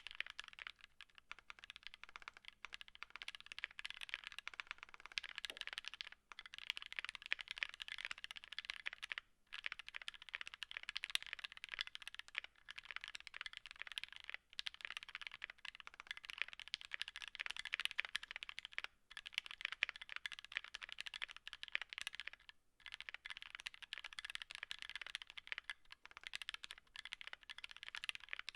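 Fast typing on a mechanical keyboard: an aluminum Tofu60 case with a brass plate and Gateron Ink Black v2 linear switches, lubed with Krytox 205g0 and filmed. The keystrokes run in a dense stream, broken by brief pauses every few seconds.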